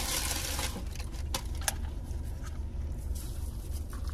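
Paper food wrapping rustling briefly, then a few small clicks as food and packaging are handled, over a steady low hum.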